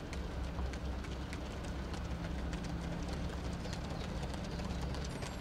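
Footfalls of a pack of distance runners on a synthetic running track: an irregular patter of many quick steps over a steady low rumble.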